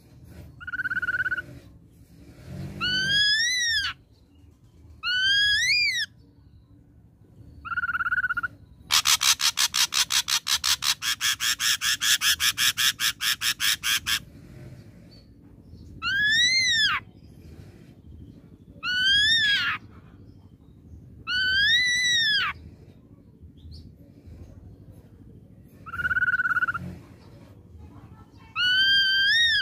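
Ashy drongo singing: loud, separate whistled notes, some held level and others rising and falling in an arch, repeated every few seconds. A rapid, harsh rattle about nine seconds in lasts roughly five seconds.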